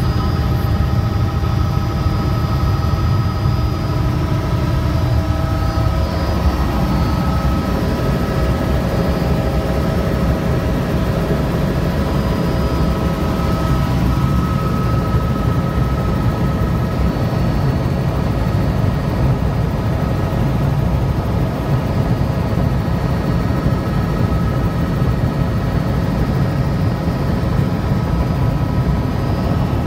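Helicopter engine and rotor running steadily, heard from inside the cabin: a loud, even drone with a few steady whining tones above it.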